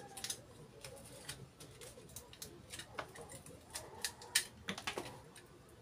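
A small hand cutting tool snipping and scraping at the dry fibrous husk of a coconut, giving irregular sharp clicks and scratches several times a second.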